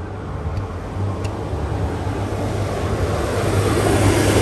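Pesa SA136 diesel multiple unit approaching and drawing level, its diesel engine hum and wheel-on-rail noise growing steadily louder.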